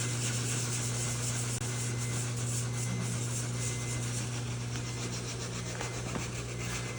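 A steady low machine hum with a thin high whine and an even hiss, unchanging throughout.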